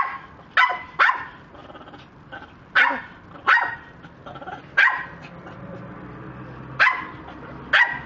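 Small white dog barking in short, sharp barks, about eight of them at irregular intervals, begging for something held out above it.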